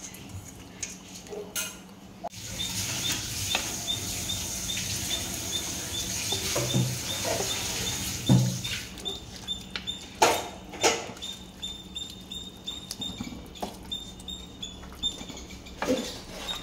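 Rice tipped from a steel colander into boiling curry in a nonstick pot, then a wooden spatula stirring it through the bubbling liquid, with a hiss and several sharp knocks of the spatula against the pot.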